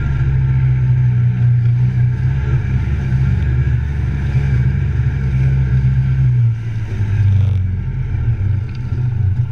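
Side-by-side utility vehicle's engine running steadily under load while driving on a muddy swamp trail. Its low drone lightens about six and a half seconds in.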